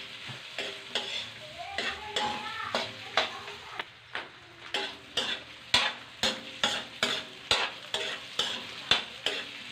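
Squid balls sizzling as they fry in a steel wok, stirred so that the utensil scrapes and knocks against the metal pan in sharp strikes, about two a second in the second half.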